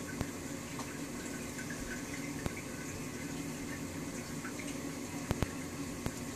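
Reef aquarium's water circulation running steadily: an even wash of moving, trickling water, with several sharp clicks scattered through it.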